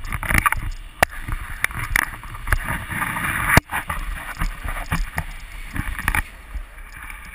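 Rushing airflow of a paraglider in flight buffeting the camera's microphone, gusty and uneven, with scattered sharp knocks. It eases about six seconds in.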